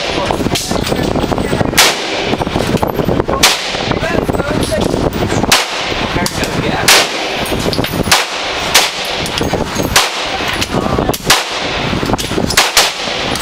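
Gunshots on an indoor shooting range: about ten single shots at irregular intervals, one to two seconds apart, over a steady loud background of range noise.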